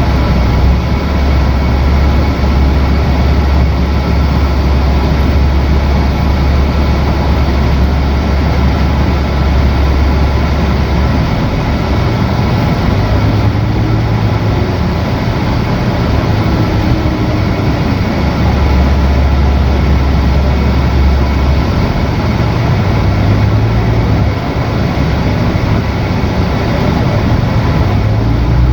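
Riding inside a city bus: a steady engine drone and road noise, with a deep low rumble that swells and eases over several seconds at a time.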